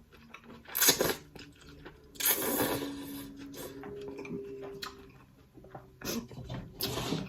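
Close-up mukbang eating sounds: a person chewing and slurping with mouth noises, in several short loud bursts, the longest about two seconds in, with a faint steady low tone in the middle.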